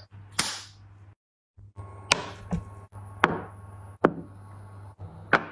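Tableware knocking against a table: about six sharp knocks and taps, irregularly spaced.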